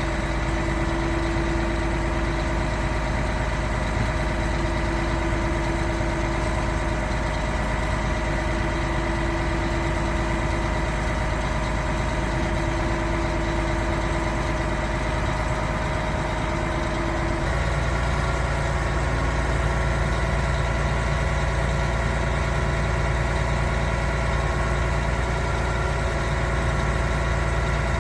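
Concrete pump truck's diesel engine and hydraulics running steadily with a constant whine. About two-thirds of the way in the sound changes abruptly: the whine shifts pitch and the low rumble grows louder, then holds steady again.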